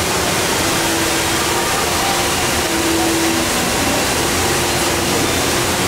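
HSBC Rain Vortex, a tall indoor waterfall, with a sheet of water pouring down into its pool: a steady, even rush of falling water.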